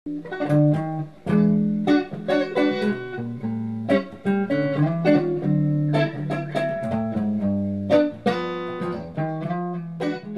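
Guitar music: a quick run of plucked notes over held low bass notes.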